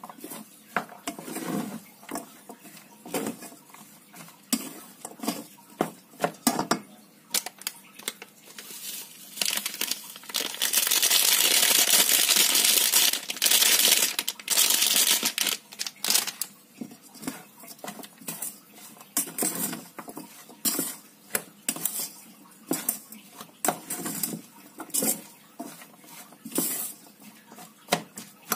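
A plastic rice paddle stirring rice and diced vegetables in a rice cooker's inner pot, with many short sharp taps and scrapes against the pot. In the middle, for several seconds, a loud rustling hiss as a sachet of instant fried-rice seasoning is crinkled and shaken out over the rice.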